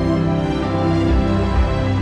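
Background music with sustained, held chords.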